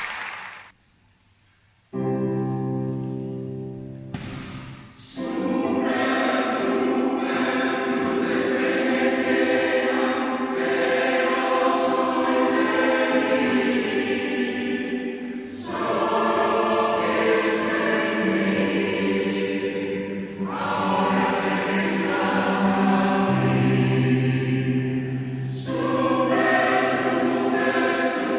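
Choir singing. After a short hush, a held opening chord sounds abruptly about two seconds in and dies away, and the full choir comes in about five seconds in, singing sustained, changing chords.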